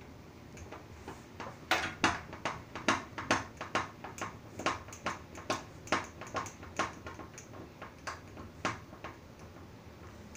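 Phillips screwdriver driving a screw into a fire alarm panel's keyboard controller board: a run of sharp clicks, about two or three a second, starting about a second and a half in and stopping near the end.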